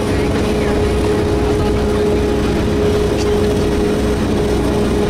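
Diesel cog railway railcar climbing, heard from inside the carriage: steady running noise from the engine and drive, with a constant whine over a low rumble.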